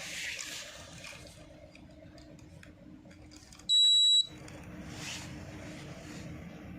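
A single loud, high electronic beep lasting about half a second from an air conditioner's control-board buzzer, over a faint steady hum.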